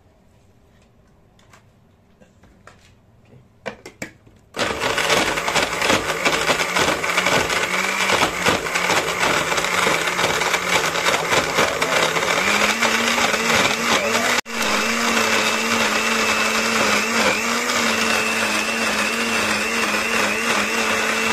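Electric countertop blender blending avocado and milk into a milkshake: after a few faint clicks, the motor starts about four and a half seconds in and runs steadily at full power. Its hum steps up slightly in pitch about halfway through, with a momentary break just after.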